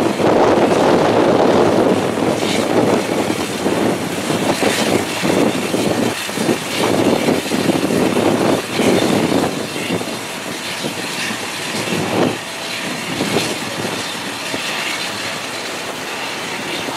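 Rushing jet noise from aircraft on the airport apron, swelling and easing irregularly; it is louder for the first several seconds and eases after about ten seconds.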